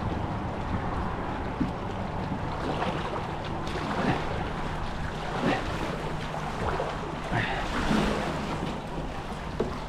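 Wind on the microphone over water lapping and splashing around a kayak, with short splashes about every second or so, as of a paddle dipping in.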